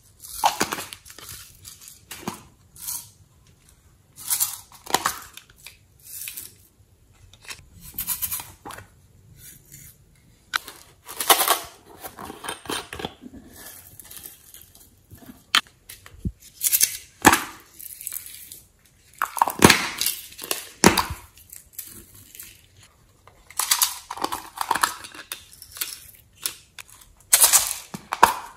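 Plastic slime add-in containers being handled close up: glitter shaken and squeezed out of a plastic bottle in short rustling bursts, with a few sharp clicks from lids and containers.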